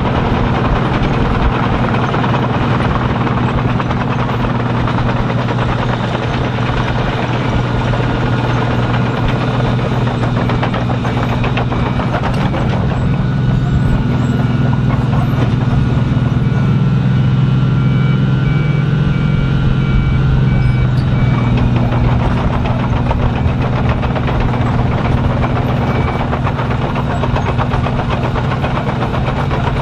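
Heavy diesel machinery of an asphalt milling job running steadily, a deep engine hum under a grinding noise. A reversing alarm beeps evenly for a few seconds past the middle.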